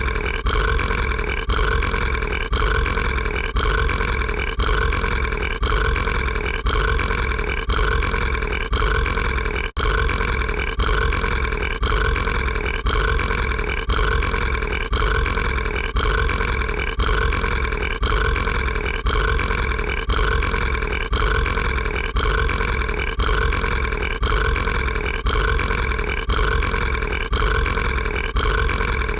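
A cartoon monster's burp: a short piece of one long burp looped over and over into an unbroken, steady-pitched belch. It restarts a little more than once a second, with one very brief dropout about ten seconds in.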